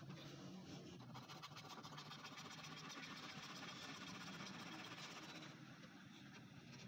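Faint, rapid scraping of a small flat metal blade over the plastic lens of a car tail light, shaving the repaired surface to shape. It is a fast run of fine scratches that eases about five and a half seconds in.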